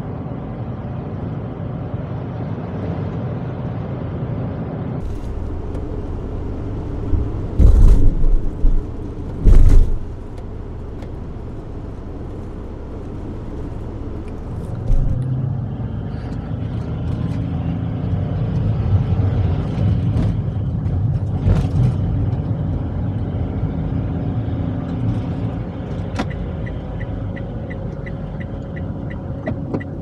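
Cab noise of a 660 cc kei truck camper on the move: the small engine running steadily under road noise, heard from inside the cab. Two loud low thumps come about eight and ten seconds in, with a run of quick ticks near the end.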